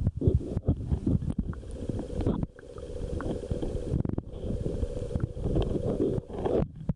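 Muffled low rumbling and gurgling of water moving around a camera held underwater, with scattered small knocks. A faint steady hum runs through the middle.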